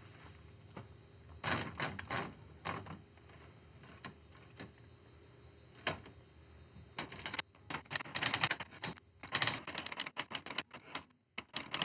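Manual portable typewriter: a few scattered knocks and clicks as the carriage and paper are handled, then, from about seven seconds in, rapid typing, keys and typebars striking the page in quick runs.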